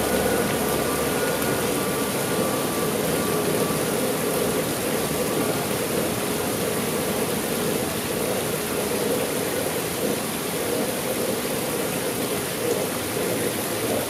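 Steady rushing splash of water falling down a man-made rock-wall waterfall, with a faint steady hum in the first few seconds.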